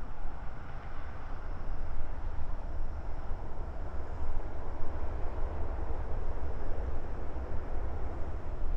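Wind buffeting the microphone over the steady rumble of a jet airliner.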